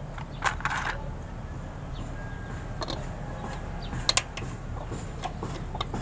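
Small metallic clinks and taps of lug nuts being handled and threaded by hand onto a Bajaj RE's front wheel studs, with a sharp double clink about four seconds in, over a steady low hum.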